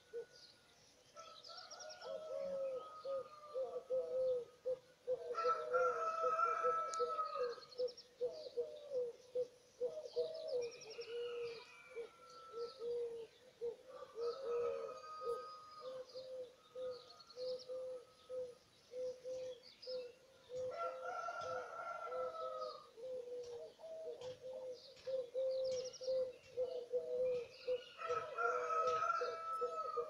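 Several birds singing together: a near-continuous run of low, quickly repeated notes, high quick trills, and three louder drawn-out calls about five, twenty and twenty-eight seconds in.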